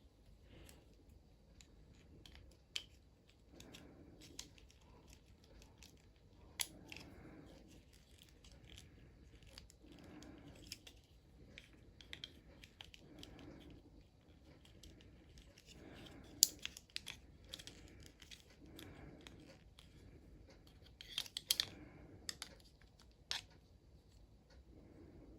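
Faint clicks, snips and scrapes of small hand tools working on a keyboard's internal parts while a potentiometer is being removed, with a few sharper clicks about two-thirds of the way through.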